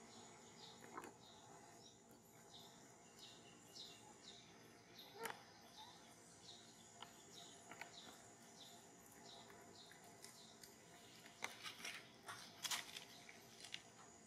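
Faint outdoor ambience with a short, high chirp repeated two or three times a second, stopping about ten seconds in, followed by a few faint clicks and taps near the end.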